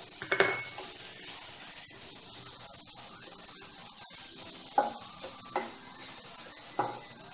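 Wooden spatula stirring a dry raw-turmeric stuffing in a non-stick pan over a soft sizzle, with sharp knocks of the spatula against the pan about half a second in and three more near the end.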